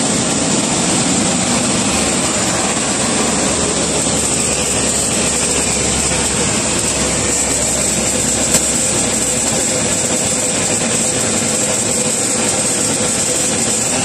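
Steady, loud noise of running aircraft machinery with a thin high whine. A low hum sits under it until about two-thirds of the way through, and there is one sharp click a little past the middle.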